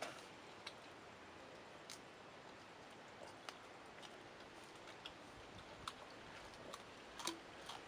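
Faint scattered clicks and crunches over a low steady hiss, from grilled dung beetles being picked out of the ash, broken open and chewed.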